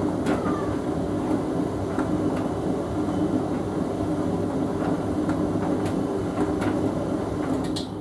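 Hoover VHV680C vented tumble dryer running a mixed-fabrics cupboard-dry cycle: a steady drum-and-fan hum with scattered light clicks.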